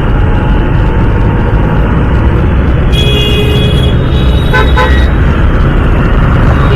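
Loud, steady rumble of a motorcycle riding through city traffic, with a vehicle horn honking for about a second starting about three seconds in, followed by a couple of short toots.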